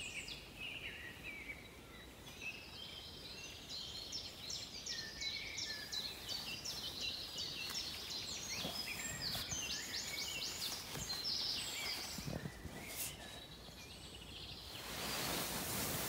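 Faint dawn chorus of several songbirds: overlapping trills and quick runs of repeated high notes. They thin out near the end, where a rustling hiss comes up.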